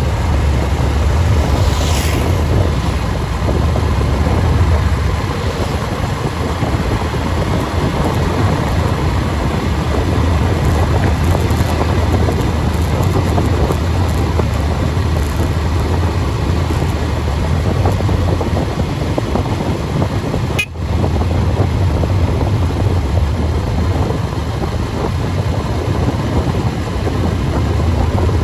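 Steady wind rush and road noise from a vehicle moving at speed along a highway, with a continuous low rumble.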